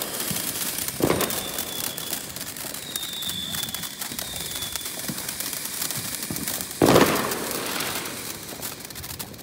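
Consumer firework fountain spraying sparks with a steady, dense crackle and small aerial bursts popping, with two louder bangs, one about a second in and one about seven seconds in.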